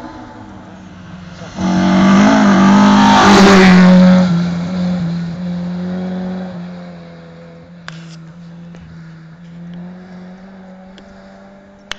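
A rally car passing close at full throttle on a gravel stage, sudden and loud about one and a half seconds in and loudest for about two seconds. Its engine note then fades away slowly, with a couple of sharp ticks later on.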